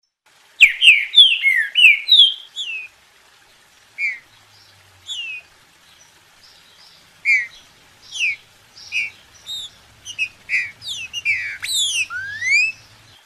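Green-winged saltator (trinca-ferro) singing: a bout of loud, clear whistled phrases made of short falling slurs. A short lull comes about a third of the way through, and the last note rises.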